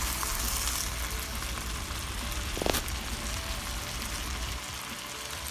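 Chopped tomatoes and green onions frying in hot oil in a steel pot over a full flame, a steady sizzle, with a single sharp knock about halfway through.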